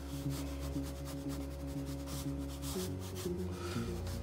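Pencil scratching on drawing paper in quick, repeated sketching strokes, over soft background music with held notes that change about three-quarters of the way through.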